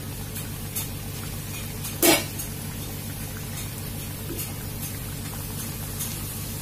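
A puri deep-frying in hot sunflower oil in a kadai, the oil bubbling and sizzling steadily around it. There is a single brief sharp knock about two seconds in.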